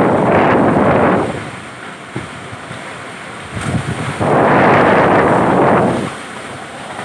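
Super Cyclone Amphan's wind gusting hard and buffeting the phone's microphone. One loud gust lasts about the first second, then a quieter lull, and a second gust comes from about four seconds in to six.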